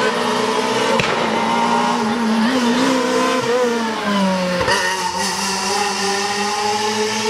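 Rally car's engine revving hard at high rpm as it drives up the stage, a steady high engine note that dips briefly in pitch a few times near the middle.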